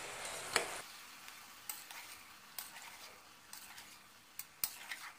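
Steel spatula stirring vegetables in an aluminium pressure cooker, with scattered scrapes and clicks against the pot over a faint sizzle from the cooking vegetables.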